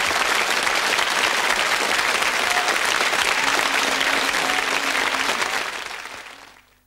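Studio audience applauding, the clapping fading away near the end.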